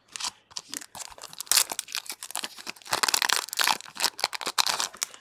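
Foil wrapper of a Digimon booster pack crinkling and tearing as it is opened by hand: a run of sharp crackles, loudest from about the middle to near the end.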